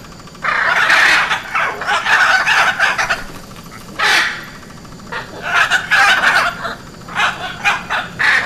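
Hyacinth macaw giving loud, raspy squawks in bouts: a long run of calls over the first few seconds, a single short call about four seconds in, then two more bouts near the end.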